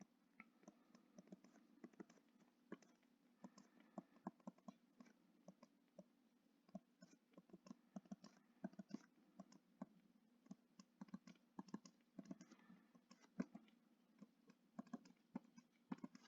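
Near silence with faint, irregular small clicks and taps scattered throughout, a few every second at times.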